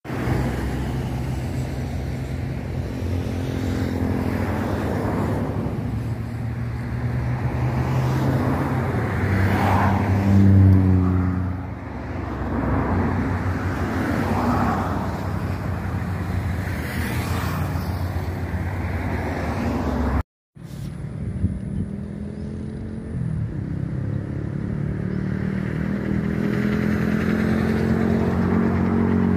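Road traffic: motor vehicle engines passing on the road, one swelling loudest about ten seconds in and then falling away. A brief dropout about twenty seconds in. Near the end another engine rises in pitch as it approaches or speeds up.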